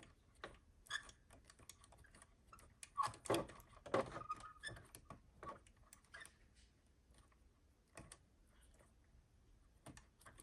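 Irregular light clicks and ticks of small metal parts being handled, busiest about three to four and a half seconds in, as the stub of a broken screw is worked loose by hand from an RC crawler's lower link and shock mount.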